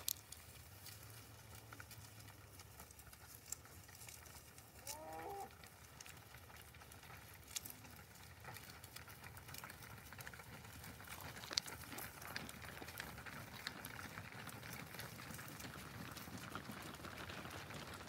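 A herd of cattle walking over snow-covered ground: the soft shuffling and crunching of many hooves, with scattered clicks, building up in the second half as the herd comes close. One short pitched call about five seconds in.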